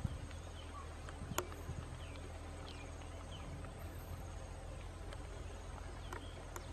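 Outdoor ambience: a steady low rumble with faint, scattered short chirps, like distant birds, and one sharp click about a second and a half in.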